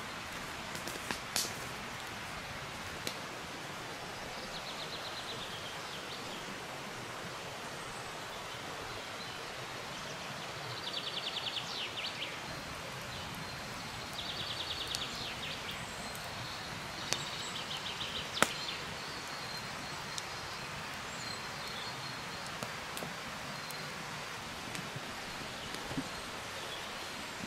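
Outdoor woodland ambience: a steady rushing background hiss, with several short, rapid, high trills and a few sharp clicks.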